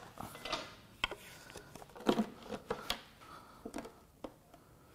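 A pry bar levering and tapping at an engine's valve cover to work it loose, giving a string of irregular light clicks and knocks.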